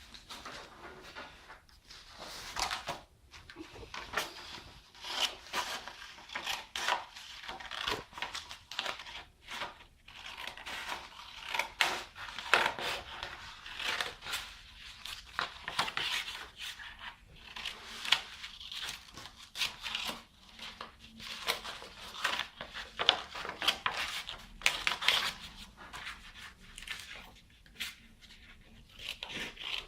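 Irregular crinkling, rustling and tearing sounds of packaging being handled.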